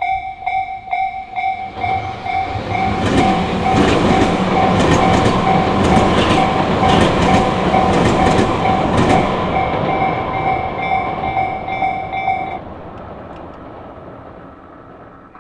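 Japanese level-crossing warning bell dinging over and over while a Tobu Nikko Line train passes. The train's wheels clatter over the rail joints, loudest in the middle. The bell stops a few seconds before the end as the train noise dies away.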